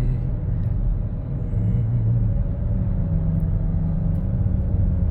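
Steady low rumble of a car, heard from inside the cabin while driving in slow traffic.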